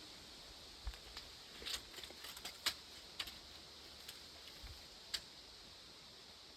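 A scattering of light, irregular clicks and taps, about a dozen of them, over a steady hiss.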